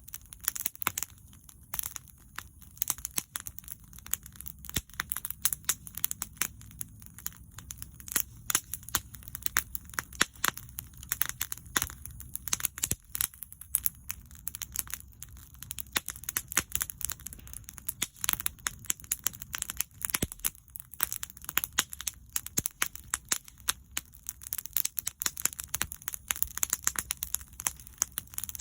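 Wood bonfire crackling, with irregular sharp pops and snaps over a low rumble of the flames.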